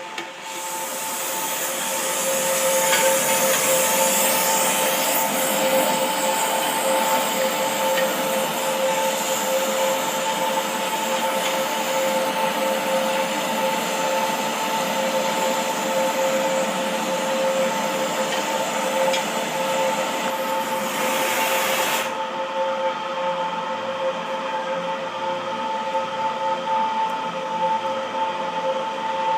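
A steady machine rush with a constant two-note hum, typical of the electric air blower on a blacksmith's forge fire. No hammer blows. About three-quarters of the way through, the highest hiss drops away suddenly while the hum and rush carry on.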